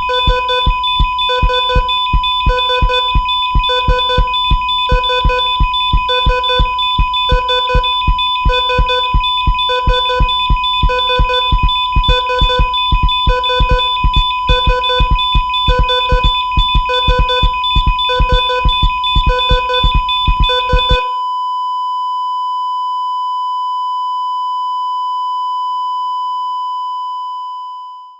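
Simulated heart monitor: regular electronic beeps with heartbeat thumps, a little over one a second, over a steady electronic tone. About 21 seconds in the beating stops and a single long flatline tone is left, the sign of cardiac arrest. The tone fades out at the very end.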